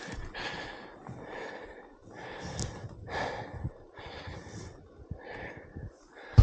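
A man's heavy breathing: a string of hard, rough breaths, about one a second.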